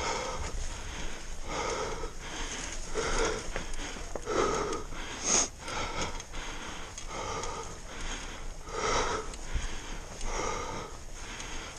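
Heavy, wheezy breathing of a person labouring uphill, a loud breath about every second and a half, with a sharp sniff about five seconds in.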